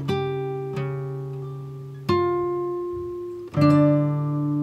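Background music of acoustic guitar chords strummed and left to ring out. New chords are struck about two seconds in and again about three and a half seconds in.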